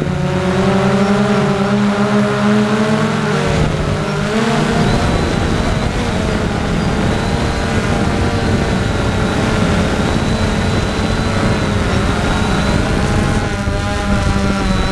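Storm X3 quadcopter's electric motors and propellers buzzing, recorded from the drone's onboard camera, their pitch wavering and shifting as it flies, over a steady rush of noise.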